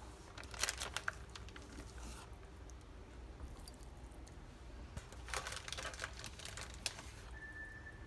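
A plastic zip-top bag crinkling as it is handled, in two bouts of about a second each, with scattered light clicks. A short high beep sounds near the end.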